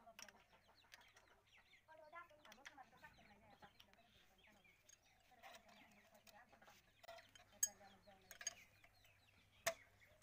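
Near silence: faint clucking bird calls in the background, with a few sharp clicks, the loudest about three-quarters of the way through and near the end.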